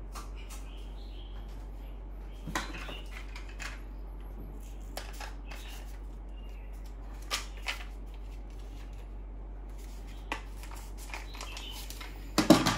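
Tools and small hardware being handled and set down: a few scattered clicks and knocks over a steady low hum, with a quick cluster of knocks near the end.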